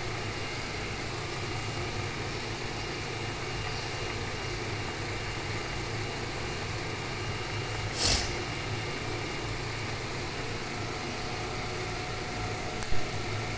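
Steady low mechanical hum with a hiss over it, with a short noisy rustle about eight seconds in and a sharp click near the end.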